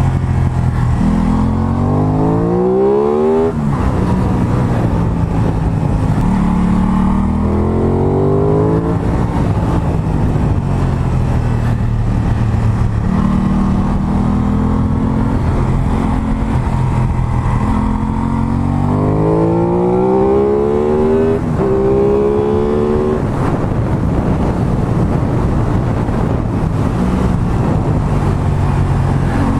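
Aprilia Tuono 660's parallel-twin engine through an aftermarket exhaust, accelerating hard and revving up through the gears several times: the pitch climbs steeply, drops at each shift, and falls away when the throttle is eased off between runs.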